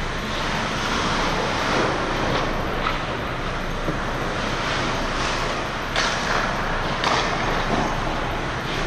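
Pickup hockey play: a steady rushing noise with a few sharp clacks of sticks on the puck, the loudest about six seconds in and another about seven seconds in.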